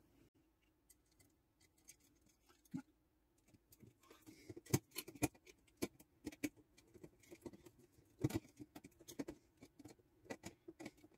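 Faint, irregular small clicks and scrapes of a screwdriver working at a panel meter mounted in a plastic switch faceplate, with the plastic plate knocking as it is handled. The clicks grow much denser about four seconds in.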